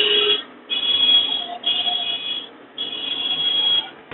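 Vehicle horn honked in traffic: about five high-pitched blasts of half a second to a second each, with short gaps between them.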